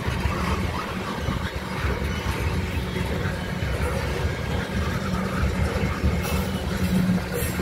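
Crude-oil tank cars of a freight train rolling past, a steady low rumble of steel wheels on rail.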